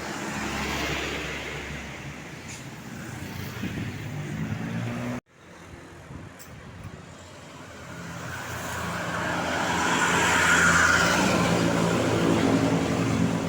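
Large tour buses going by: engine drone and road noise. The sound breaks off abruptly about five seconds in, then a second bus approaches, growing louder to a peak and easing off near the end.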